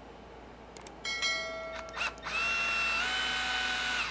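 Cordless drill motor whining in two runs as it drives a screw into the end of an RC truck's aluminium center brace. The first run is short, about a second in. The second is longer, starts just past two seconds and steps up a little in pitch near three seconds, with a click between the runs.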